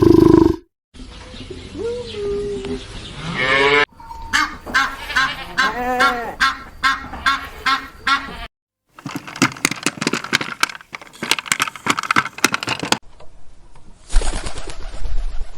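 Birds calling in a run of short clips cut one after another. The calls rise and fall in pitch, with a stretch of rapid clicking calls about nine to thirteen seconds in.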